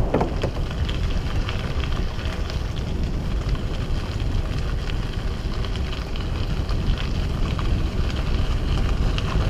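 Wind rumbling on the microphone of a moving mountain bike, with a steady scatter of crackles from the tyres rolling over a rough track.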